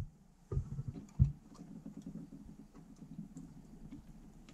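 Small plastic clicks and taps of a W5W wedge bulb being handled and pushed back into the roof console lamp's holder, with two short dull knocks about half a second and a second in.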